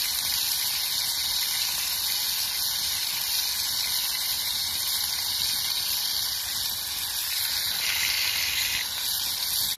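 Steaks frying in aluminium mess tins over a campfire, a loud, steady, high sizzling hiss that cuts off suddenly at the end.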